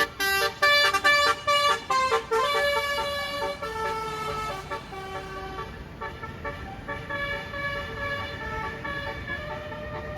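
A tour bus's Basuri 'telolet' multi-tone air horn playing a tune. Quick staccato toots come first, then longer held notes that step between pitches.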